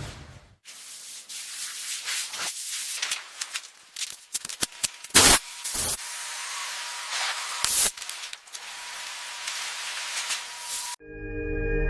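Spraying and scrubbing sounds from car cleaning, cut together as a series of separate hissing bursts with sharp clicks between them.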